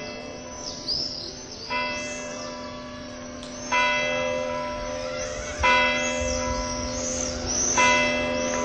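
Church bell tolling, struck about every two seconds, each stroke ringing on under the next, with high chirps above it.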